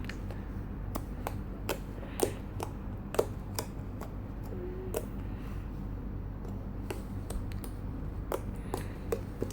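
Marshmallow slime being poked and squeezed by hand, giving irregular sharp sticky clicks and pops, about one or two a second, over a steady low hum.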